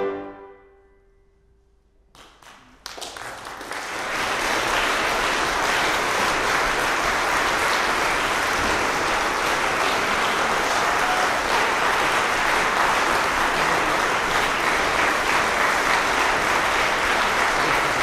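The final piano and cello chord dies away, followed by about two seconds of hush. An audience then breaks into steady applause.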